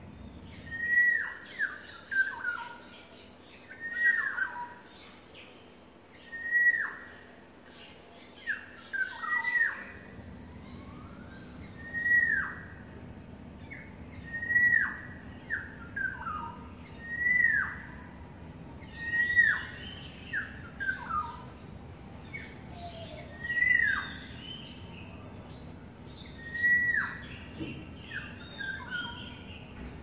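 Black-naped orioles calling. A loud call that drops sharply in pitch repeats about every two to three seconds, with shorter notes in between. The uploader calls these the sounds of courting.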